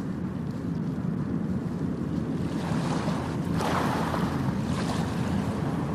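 Ocean surf washing onto the beach with wind rumbling on the microphone, a louder wash of water a little past halfway through.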